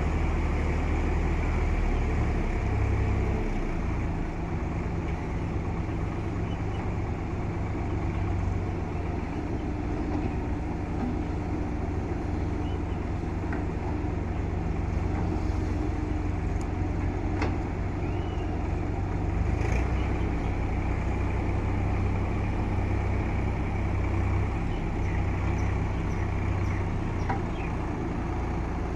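JCB 3DX backhoe loader's diesel engine running steadily while it works, its low drone shifting pitch now and then as the load changes, with a few light knocks.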